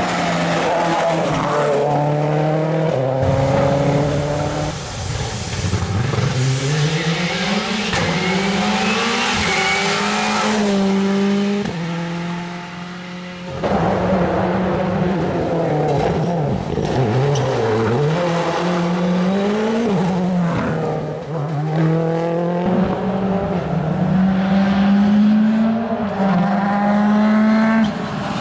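World Rally Car turbocharged 1.6-litre four-cylinder engines at full throttle, climbing in pitch through repeated gear changes with tyre noise from the gravel or tarmac. The sound drops away briefly about halfway through, then comes back abruptly and climbs through the gears again.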